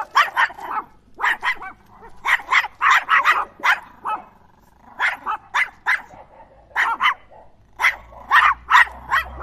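Fennec fox giving short, sharp yips and barks in quick runs of several calls, with brief pauses between the runs.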